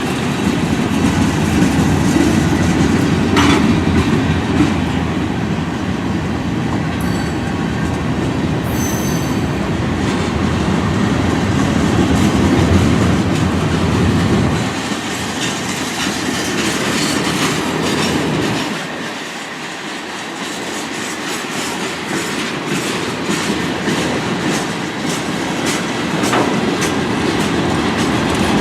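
Freight train cars rolling past, wheels clacking steadily over the rail joints, with a brief high wheel squeal about nine seconds in.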